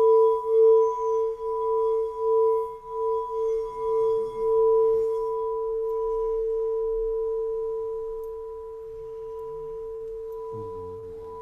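Singing bowl ringing with one steady pitch that wavers in a quick pulse for the first few seconds, then evens out and slowly fades. A faint low sound comes in briefly about four seconds in and again near the end.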